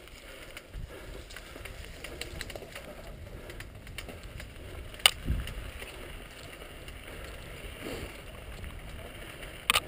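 Mountain bike descending a dirt singletrack: a steady rolling rush of tyres on dirt and leaves mixed with wind on the camera. There is a sharp clack about five seconds in, followed at once by a low thump, and another sharp clack near the end.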